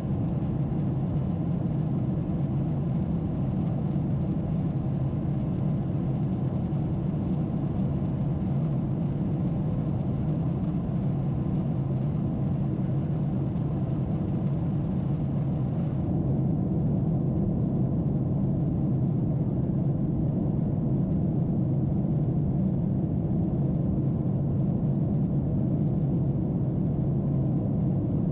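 Cabin noise inside a Boeing 747-8 in its climb: a steady low rumble of airflow and its four GEnx-2B engines, heard from a window seat.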